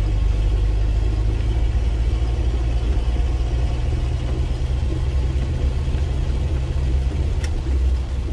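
Mitsubishi L200 pickup driving on a wet dirt road, heard from inside the cab: a steady low engine and road drone under a haze of tyre and rain noise. There is a single sharp click about seven seconds in.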